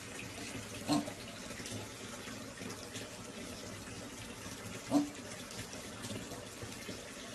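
Water running steadily into a bathtub. Two short pitched sounds cut through it, about a second in and again about five seconds in.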